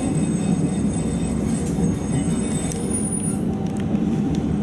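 Light-rail tram heard from inside the driver's cab: a steady low rumble with faint high-pitched tones and a few light ticks.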